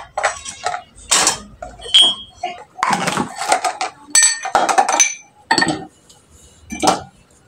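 Dishes and cutlery clattering and clinking: an irregular series of knocks and short ringing clinks.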